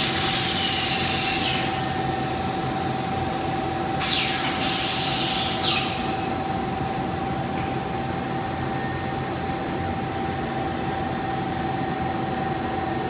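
PVC panel extrusion line machinery running with a steady hum. Three loud bursts of high hissing noise, each with a falling whine, break through it: one at the start and two close together about four seconds in.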